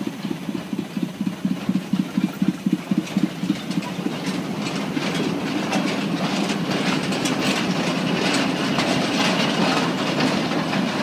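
Narrow-gauge diesel locomotive on two-foot track: a fast, even engine beat, then a train approaching with its wheels clicking and clattering over the rails, growing louder from about four seconds in.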